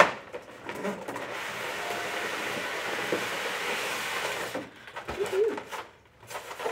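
Polystyrene foam packing block sliding out of a cardboard box: a sharp knock at the start, then a steady scraping hiss for about three seconds, followed by a few light knocks as the box comes free.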